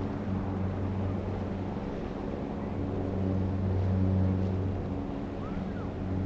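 Steady low engine drone with a constant pitch under a haze of wind and water noise. Two faint short chirps come near the end.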